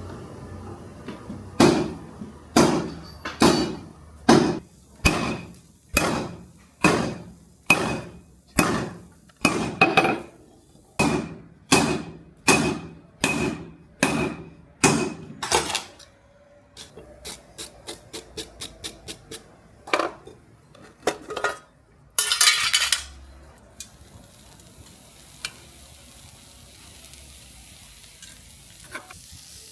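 Hammer blows on steel at the anvil: a long run of heavy ringing strikes, about one and a half a second, followed by quicker, lighter taps and a couple of single blows. A brief rush of noise comes after that, then a faint steady hiss.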